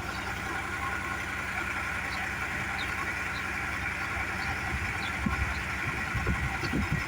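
Dexter tractor's diesel engine running steadily, driving the hydraulics of the power arm as it is worked through its movements to purge old oil from the rams. A few brief low surges come after about five seconds.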